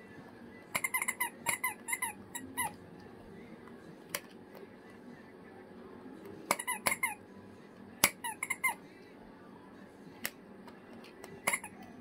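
Squeaky toy squeezed again and again, giving quick runs of short squeaks that dip slightly in pitch, in about four bursts, with a couple of single clicks between.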